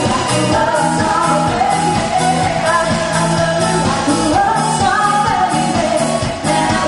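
A band playing a song with a lead vocalist singing over a steady drum beat.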